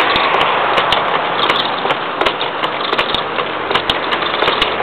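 Wood being rough-turned on a homemade wooden treadle lathe: a hand-held gouge cutting a spinning log that is still out of round. It makes a steady scraping hiss with many irregular sharp ticks.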